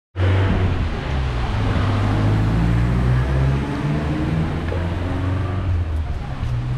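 A motor vehicle's engine running close by, a loud low hum whose pitch shifts slightly and eases off a little near the end, over a steady hiss.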